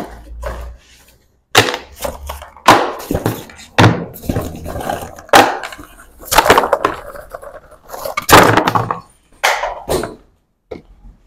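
A backpack being rummaged and shaken out, with small boxes and cables knocking and clattering onto a wooden tabletop in an irregular run of knocks and rustles.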